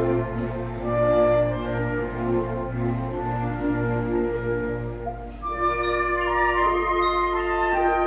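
Live orchestra playing a slow passage of a musical-theatre medley: held string and brass chords over a bass line, then about five seconds in the bass drops out and bell-like mallet percussion plays a melody of ringing notes over the sustained chords.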